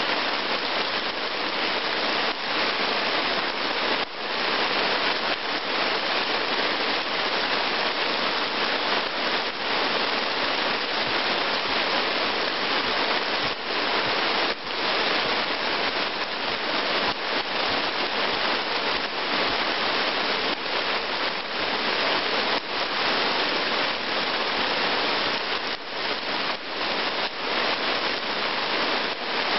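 Heavy rain pouring steadily onto puddled forest ground: a dense, even hiss of falling water, with a few sharper drop hits here and there.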